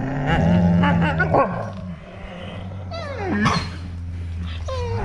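Huskies and malamutes growling and yowling at each other, a wavering drawn-out growl first, then high yelps that slide down in pitch about three and a half seconds in and again near the end.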